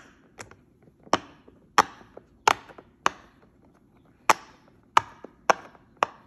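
Rainbow silicone pop-it fidget toy having its bubbles pressed one at a time, each giving a sharp pop, about nine pops spaced half a second to a second apart.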